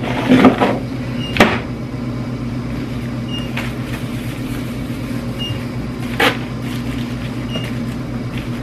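A small plastic waste bin's lid snapping shut, with a few sharp plastic knocks and clacks (the loudest about a second and a half in, another about six seconds in) as plastic bags are handled, over a steady electrical hum.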